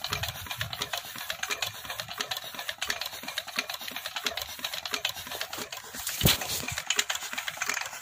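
Small Petter stationary diesel engine clattering in an even rhythm of about four to five beats a second, with one sharper, louder click about six seconds in.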